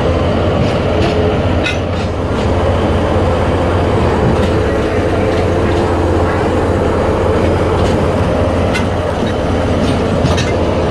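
Alishan Forest Railway train running slowly on the track, heard from its open end platform: a steady low rumble from the train, with scattered sharp clicks of the wheels over rail joints.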